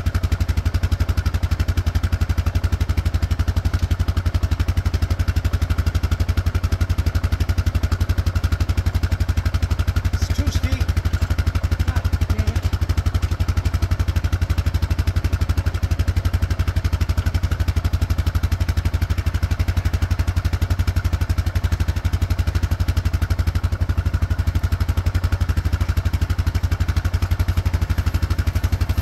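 ATV engine idling steadily with an even low throb while the quad is worked forward onto a pickup bed, with a brief light clatter about ten seconds in.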